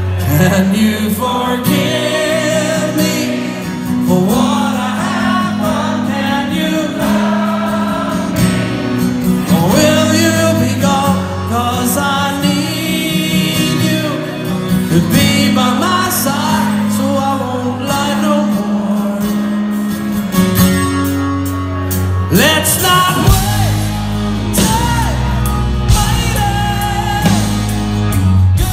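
A live rock band plays a song, heard from the audience in a large hall: sung vocals over acoustic and electric guitars, bass and drums. The low end grows heavier about three-quarters of the way through.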